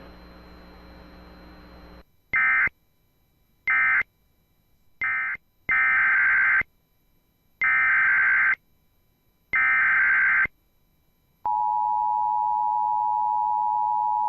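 Emergency Alert System data tones: three short data bursts (the end-of-message code of the alert just finished), then three longer bursts (the SAME header of the next alert). About three-quarters through, the steady two-tone EAS attention signal begins and holds. A faint hum comes before the bursts.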